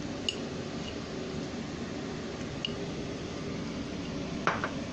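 Sweet potato (camote) wedges frying in oil with brown sugar in a nonstick pan, a steady sizzle. A few light clicks, with a small cluster of them near the end.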